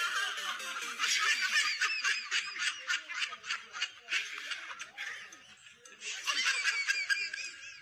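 High-pitched laughter in quick repeated pulses, dipping briefly about five seconds in.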